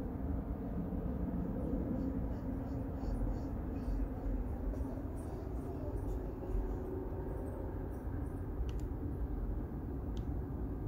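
Steady low rumble of outdoor background noise, with two faint, brief high-pitched chirps near the end.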